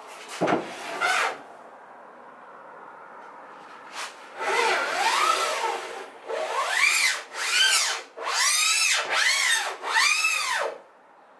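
Long aluminium spirit level rubbed back and forth over the mitre saw's table and the plywood station tops: six squeaking strokes, each rising and then falling in pitch. A couple of knocks as the level is set down at the start.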